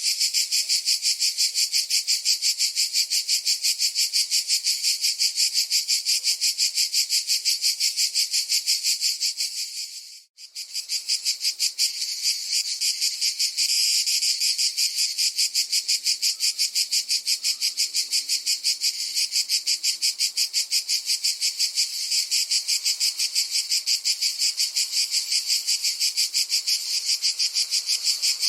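Cicadas buzzing in a loud, steady chorus of rapid pulses. It fades briefly almost to nothing about ten seconds in, then comes straight back.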